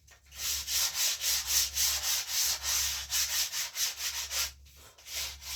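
Sandpaper rubbed back and forth over a rawhide-backed wooden bow in quick, even strokes, about four a second. The strokes stop about four and a half seconds in, and a few lighter ones follow near the end.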